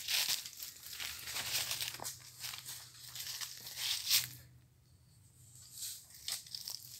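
Hoes chopping into and dragging through a compost heap of dry straw and decomposed material: irregular scraping, rustling and crunching strokes, with a brief lull about four and a half seconds in.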